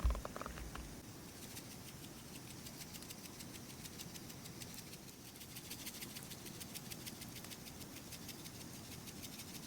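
A single knock at the start, then faint, steady crackling and ticking from a wood cooking fire.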